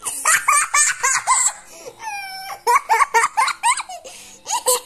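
A young girl laughing in quick, high-pitched bursts: two runs of giggles with a short break between them.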